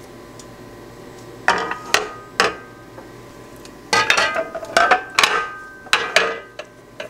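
Glass jam jars clinking and knocking against a metal pot, each knock ringing briefly: three knocks about a second and a half in, a quick cluster from about four to six seconds in, and one last knock at the end.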